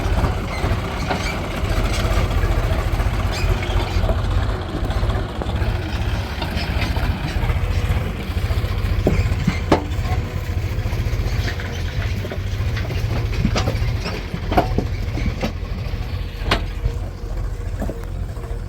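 Heavy diesel engine running steadily, with scattered short sharp knocks and clanks about halfway through and after.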